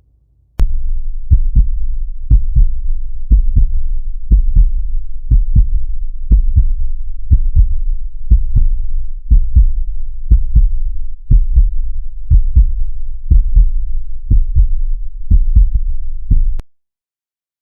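Heartbeat sound effect: deep double thumps (lub-dub), about one beat a second, steady throughout, cutting off abruptly near the end.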